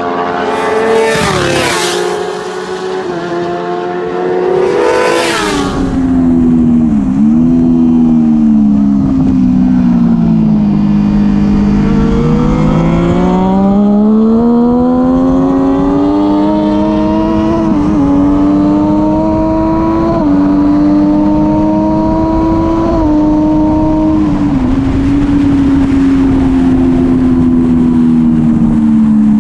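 600-class supersport motorcycles on a race track: two loud passes in the first seconds, then one bike's engine heard close up from onboard. Its pitch dips and rises through the corners and steps down briefly at several quick upshifts, then falls off slowly near the end, over steady wind and road noise.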